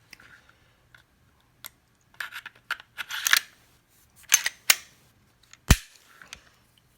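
Smith & Wesson M&P 2.0 pistol parts being handled during field stripping: short scrapes and sharp clicks of the slide and frame, with a single loud knock near the end.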